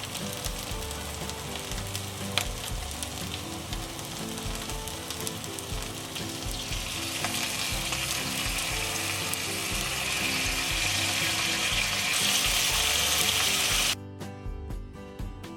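Food sizzling as it fries in oil in a pan, over steady background music. The sizzle grows brighter partway through, then cuts off suddenly near the end, leaving only the music.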